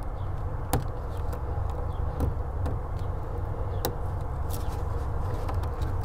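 Lock pick and tension wrench working the pins of a brass deadbolt, with scattered light clicks at irregular intervals over a steady low rumble.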